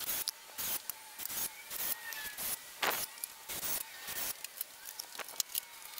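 Irregular scraping, rubbing and clicking of tools and lumber being handled on a wooden 2x4 frame: short scrapes several a second, one longer scrape about three seconds in.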